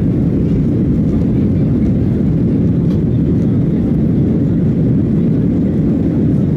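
Boeing 737-800 cabin during the takeoff roll: the CFM56-7B engines at takeoff thrust together with the rumble of the wheels on the runway, a loud steady noise, mostly low.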